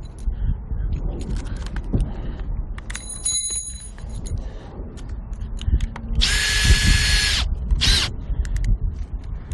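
Power drill with a masonry bit running in two bursts, about a second and a half starting some six seconds in and then a short one, drilling into concrete for a launch-tower rod. Knocks and handling clicks come before it, and a brief high metallic ringing about three seconds in.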